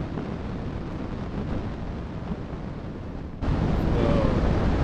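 Wind buffeting the microphone, a steady low rumble that jumps abruptly louder about three and a half seconds in.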